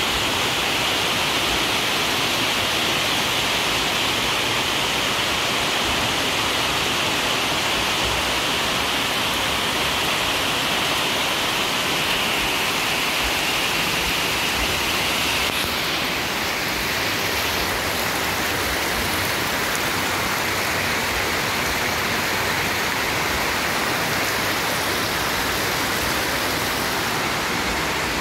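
Heavy rain falling steadily, a constant even hiss.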